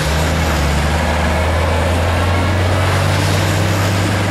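Motor vehicle engine running steadily, a low even hum with road noise.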